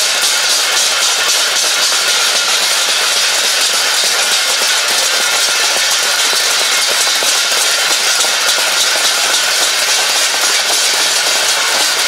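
A crowd beating stainless steel plates with spoons, a loud, steady, dense metallic clatter. It is a plate-banging protest by people complaining of hunger.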